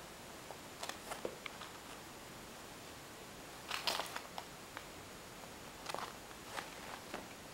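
Kittens' claws scratching and scrabbling on a bark-covered branch: faint short scrapes and clicks, a few about a second in, the loudest cluster about four seconds in and more near the end.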